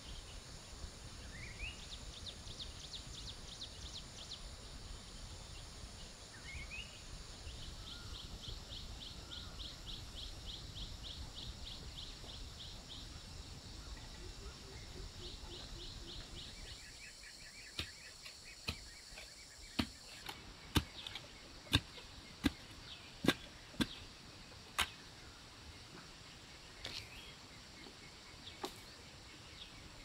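Rural outdoor ambience with birds calling: a couple of short rising chirps and a rapid pulsing call. About two-thirds of the way through, a series of around ten sharp knocks comes roughly one a second.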